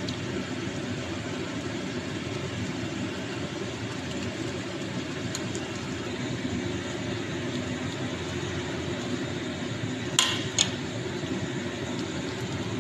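Steady low hiss of a pot of mung bean soup at a rolling boil, with two sharp clinks about ten seconds in.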